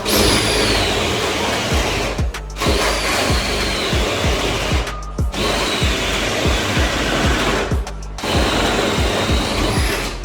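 A power drill running in four long bursts with short pauses between them, its whine dropping in pitch at the start of each burst as it takes the load. Background music with a steady beat plays underneath.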